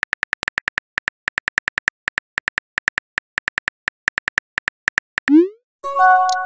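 Rapid keyboard tap clicks of simulated phone typing, in quick runs with short pauses, then a short rising swoosh of the message being sent about five seconds in, followed by a chime of several held tones near the end.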